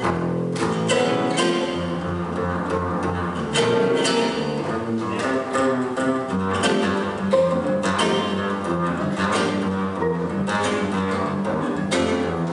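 Live gypsy jazz from an acoustic quartet: Selmer-style acoustic guitars strumming a steady beat, with upright double bass and violin.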